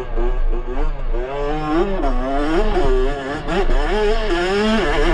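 Yamaha YZ65's 65cc two-stroke engine revving up and down under changing throttle, dropping off briefly about three seconds in before climbing again.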